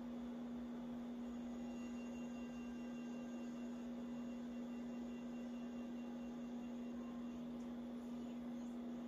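Steady electrical hum, one unchanging tone over a faint background hiss.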